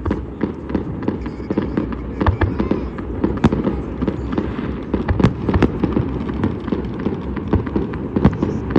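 New Year fireworks and firecrackers going off continuously: a dense run of overlapping bangs and pops, with a few sharper, louder cracks about three and a half and five seconds in.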